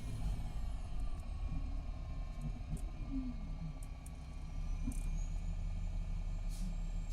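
2019 MCI D4500CT coach with a Cummins ISX12 diesel and an Allison B500R automatic transmission, running with a low steady rumble. A whine falls away in the first second or two as the bus slows, then there are a few light clicks and a brief squeak in the middle. The transmission is worn out and near failure.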